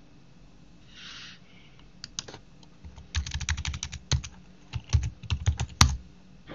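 Computer keyboard typing: a run of quick keystroke clicks entering a short terminal command, ending in a sharper, louder keypress near the end as Enter is struck.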